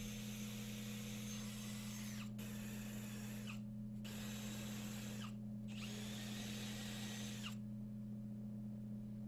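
Power drill running in several bursts, with brief pauses between them; its pitch falls off as each burst ends, and it stops about seven and a half seconds in. A steady low hum runs underneath throughout.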